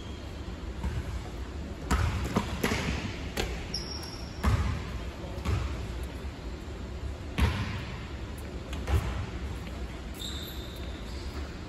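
A basketball bouncing on a hard gym floor, about seven irregular thuds that echo in the large hall.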